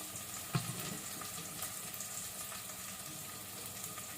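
Sliced onions steadily sizzling in hot oil in the pressure cooker pan as they brown, with a single sharp knock about half a second in.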